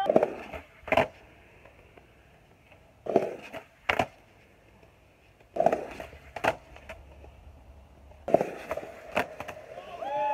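Skateboard on a concrete euro gap: four times, a sharp crack of the tail popping is followed just under a second later by the clack of the board landing on concrete, with faint wheel rumble between.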